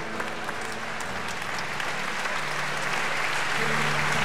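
Large concert-hall audience applauding, the clapping swelling louder toward the end.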